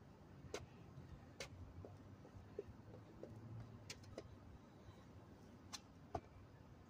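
Faint scattered taps and scuffs of hands and sneakers on a concrete pad during a burpee, a handful of short clicks over near silence, with two close together about six seconds in as the hands go down to the ground.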